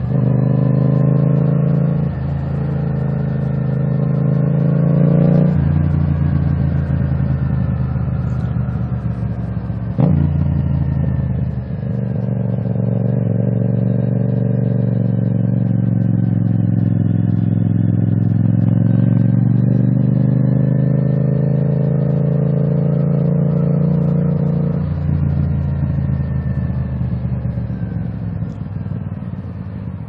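Yamaha MT-07 parallel-twin engine through a full titanium Akrapovič exhaust with the baffle removed, under way. The engine note climbs in pitch in several long pulls. Each pull ends in a sudden drop, and the engine eases off near the end.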